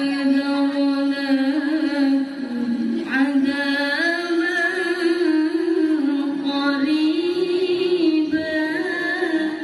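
A woman reciting the Quran in the melodic tilawah style into a microphone: long held notes with a wavering, ornamented pitch. There is a short pause for breath a little over two seconds in.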